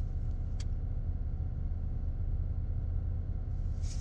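Car engine idling with the heater running, heard as a steady low rumble inside the cabin while the car defrosts. One small click about half a second in.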